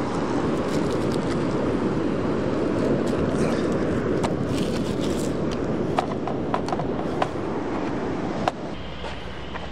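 Steady rushing noise of beach surf and wind. From about six seconds in, several sharp crackles and clicks come from a plastic bag and a plastic toy being handled.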